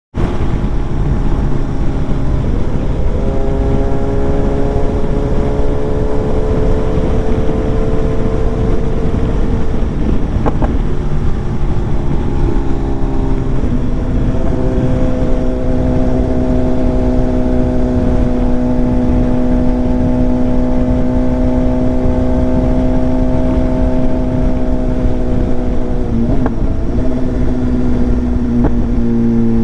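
BMW S1000XR's inline-four engine with a full exhaust system, under way: the engine note climbs, drops with a shift about ten seconds in and again just before fourteen seconds, then holds steady at cruise, changing pitch once more near the end.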